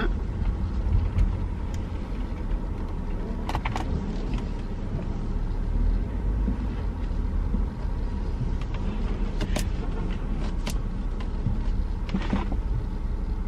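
A car driving, heard from inside the cabin: a steady low rumble of engine and road noise, with a few short clicks scattered through it.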